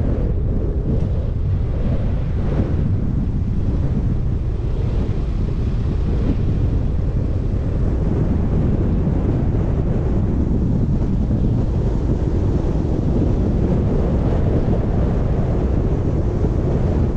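Wind and road noise from a moving car: a steady low rumble.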